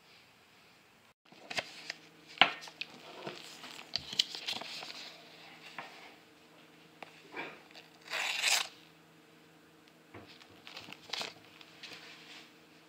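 Stiff paper being handled and cut with a knife blade: crinkling and tearing with scattered sharp clicks. The loudest click comes about two and a half seconds in, and a longer slicing rasp comes about eight seconds in.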